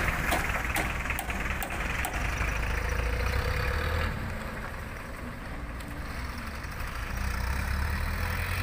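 Mitsubishi L300 box truck's engine running as the truck pulls away, a steady low rumble. There are a few sharp clicks in the first couple of seconds.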